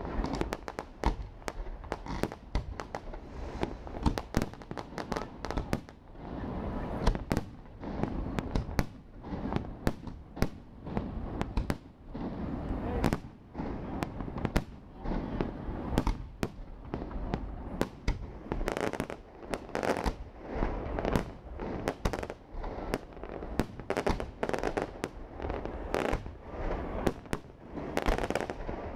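Fireworks display: a continuous barrage of aerial shell bursts and crackle, with sharp bangs coming several a second and fuller, rumbling stretches between them.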